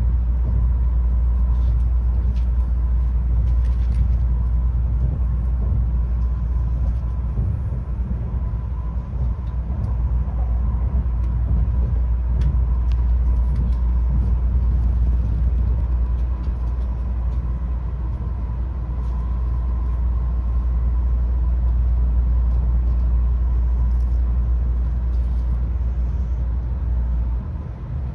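Tokaido Shinkansen train running at speed, heard inside the passenger cabin: a steady low rumble with a faint, steady high tone above it and a few light ticks.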